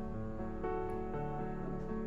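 Soft instrumental background music with plucked guitar-like notes and a steady, gentle pace.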